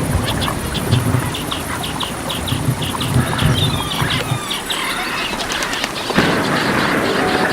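Jungle ambience of birds chirping in a quick series of short, high notes, with a few whistled calls, over a steady high insect drone. The mix changes abruptly about six seconds in.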